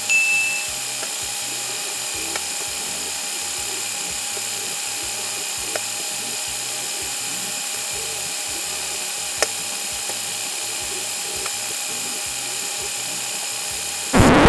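Lego gantry crane's electric motors whirring in a steady, high, drill-like whine as the automated crane moves containers, with a few faint clicks. Near the end comes a short loud burst, then the sound cuts off suddenly.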